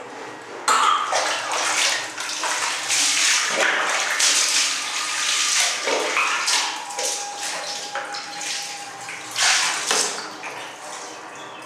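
Water scooped from a plastic bucket with a mug and poured over a baby, splashing onto the tiled floor in several pours one after another.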